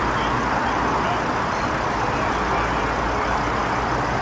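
Steady vehicle and street noise: an even rush with a low rumble underneath, unchanging throughout.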